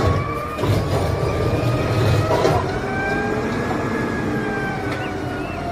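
Automated side-loader garbage truck running, its engine rumbling under a whine from the hydraulic lifting arm as it grabs and raises a wheeled trash cart. The whine rises slowly in pitch over the first few seconds and then eases off.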